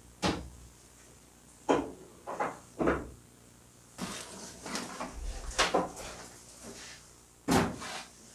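A string of sharp knocks and clatters from hard objects being handled, busier in the middle, with a loud knock near the end.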